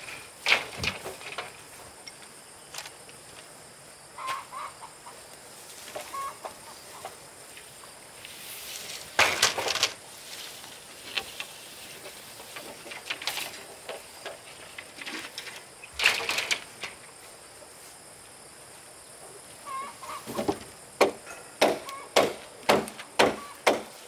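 Chickens clucking, with scattered knocks and a quick run of about eight sharp knocks near the end.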